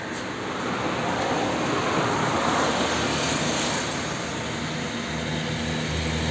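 Steady rushing noise of motor traffic that swells over the first two seconds, with a low steady engine hum setting in near the end.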